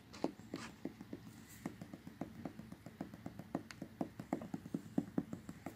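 Fingers tapping lightly on a vehicle windshield's glass: quick, quiet taps, about four or five a second, irregular.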